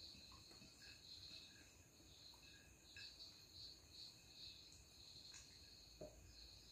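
Near silence: room tone with a faint, high-pitched pulsing chirp a few times a second, and a few soft clicks of hand-eating from plates, one a little more distinct about six seconds in.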